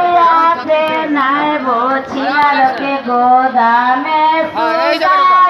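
Women singing a traditional wedding folk song: a slow, drawn-out melody with long held notes.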